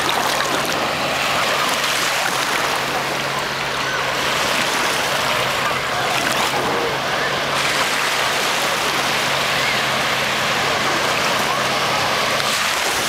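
Small lake waves breaking and washing up over sand at the shoreline: a steady wash of water noise.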